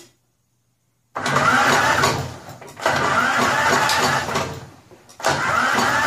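Snapper walk-behind mower's electric starter cranking the engine with the spark plug wire off, so the engine turns over without firing. Three bursts of cranking, each whirring up as it starts, with a quick even pulsing beneath. The starter has just been oiled because it is suspected of staying engaged.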